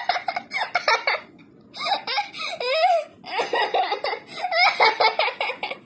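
Recorded laughing sound effect: a person laughing in quick high-pitched bursts, with short pauses about a second and a half in and again about three seconds in.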